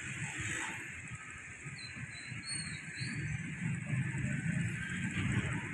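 Low rumble of an approaching diesel locomotive, growing louder in the second half, with a few short bird chirps about two to three seconds in.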